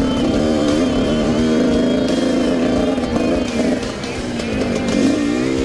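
Dirt bike engine running under throttle, its pitch rising and falling with the revs. It drops off about four seconds in, then climbs again near the end.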